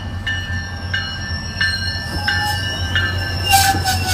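SunRail commuter train rolling in along the platform with a steady low rumble, its bell ringing about every two-thirds of a second. A thin wheel squeal joins about halfway, and a burst of hiss comes near the end.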